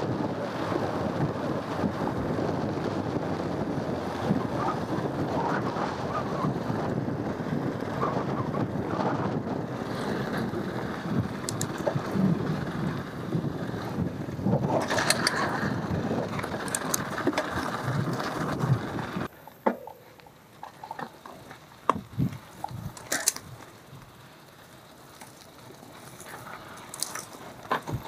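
Wind buffeting the microphone over the rattle and rumble of a mountain bike riding a dirt trail. About two-thirds of the way through this cuts off suddenly, leaving a much quieter stretch with scattered clicks and taps.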